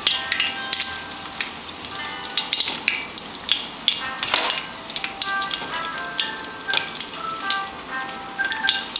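Green plantain pieces frying in hot oil in a pot, a steady crackle of sharp little pops and spits: the first fry for tostones. Faint music of short held notes plays underneath.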